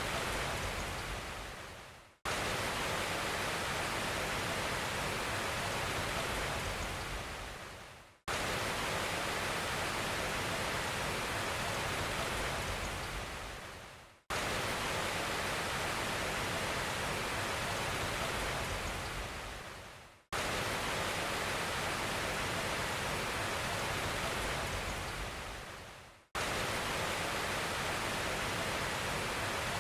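Steady even hiss, like pink noise or rushing water, that fades away and then cuts back in abruptly about every six seconds: a short noise clip played on a loop.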